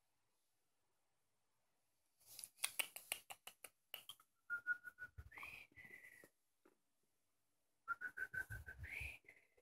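Guinea pig wheeking: two bouts of high-pitched squealing, one about two seconds in and one about eight seconds in. Each bout is a quick run of short squeaks that climbs into a longer whistle.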